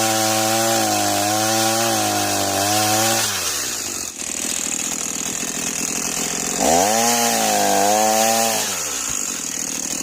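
Echo CS-490 two-stroke chainsaw running at high revs, dropping to idle a little over three seconds in, then revved up again about seven seconds in for under two seconds before falling back to idle. The saw is new and being run gently for break-in.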